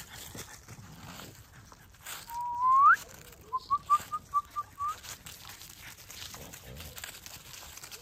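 A person whistling: one loud rising whistle a couple of seconds in, then a quick run of about seven short whistled pips.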